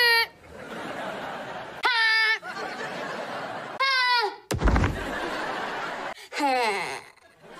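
A boy's short, high-pitched "Heh!" exclamations, three of them, the last gliding down in pitch, with sitcom studio-audience laughter between them. About four and a half seconds in comes a single heavy thud, the sound of a body dropping onto a padded gym mat.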